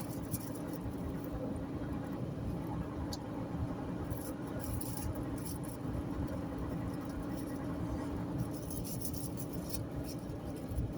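Steady road and engine noise inside a moving car's cabin: a low rumble under a constant hum, with faint scattered high ticks and crackles.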